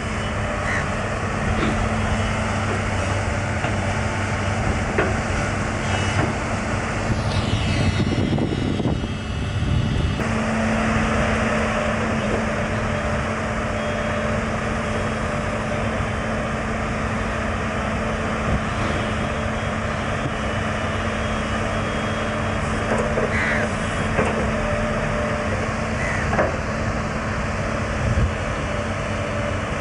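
LiuGong 922D hydraulic excavator's diesel engine running steadily with a constant hum, while the machine works with a few short squeaks and knocks.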